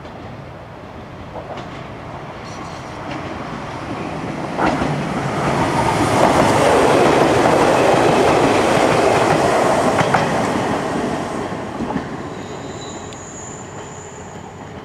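Ichibata Electric Railway 5000 series electric train passing close by. Its running rumble and wheel noise swell to a peak midway and then fade away, with a few sharp clacks from the wheels along the way.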